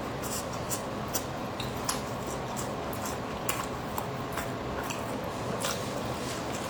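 A person chewing a pork-filled bread roll close to the microphone, with irregular small mouth clicks throughout.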